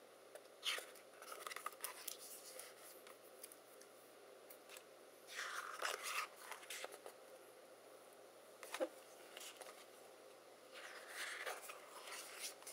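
Paper pages of a sticker book being turned one after another: soft rustles and swishes of paper, a few short ones and two longer ones, with quiet gaps between.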